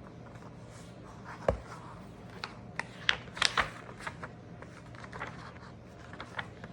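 Pages of a paper picture book being handled and turned: a scatter of small clicks and rustles, with a soft bump about a second and a half in and the sharpest rustles around three and a half seconds.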